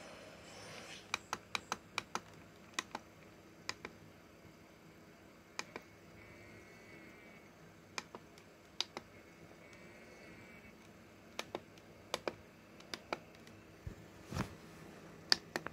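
Sharp plastic button clicks as a DVD menu is navigated, some single and some in quick runs of three to five, scattered irregularly. A faint wavering tone sounds twice in the middle.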